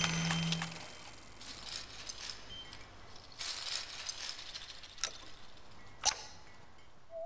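Small loose pieces rattling and clinking in a glass jar as a hand rummages through them, in two short bursts. A low hum fades out in the first second, and a single sharp knock comes about six seconds in.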